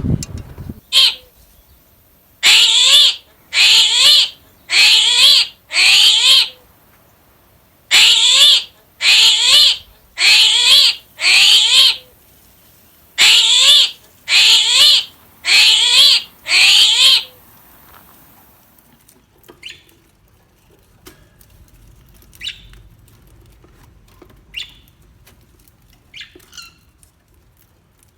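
A bird's loud, harsh squawks, repeated in three series of four calls each about 0.7 s long. In the second half, a few faint short chirps.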